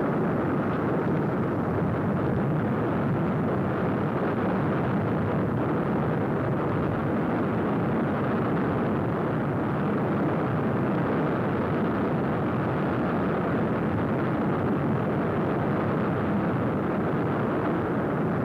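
Steady rushing noise at an even level, with no separate sounds standing out.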